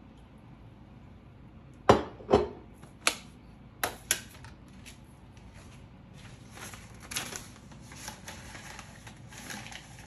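Several sharp knocks and clicks of hard kitchen items being handled, about two to four seconds in. Then soft paper crinkling as a cone coffee filter is handled and set into the coffee maker's brew cone.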